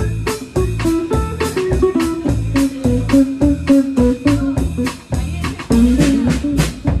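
Live band with drum kit and electric guitar playing a steady, driving beat. It stops on a final hit right at the end, which rings on.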